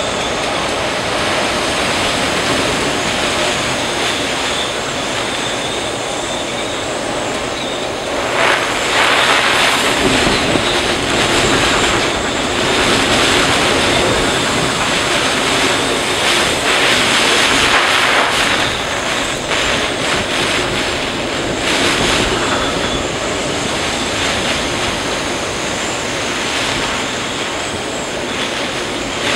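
Storm wind and driving rain, a steady rushing noise that surges louder in gusts, the first about eight seconds in and again a few times after.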